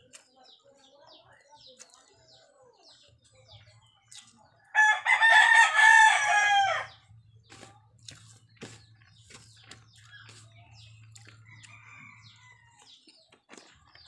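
A rooster crows once, loudly, about five seconds in; the call lasts about two seconds and drops in pitch at the end. Around it are faint, soft mouth clicks and smacks from eating by hand.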